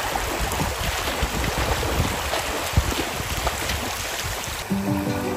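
A dog splashing as it runs through shallow creek water. Background music comes in near the end.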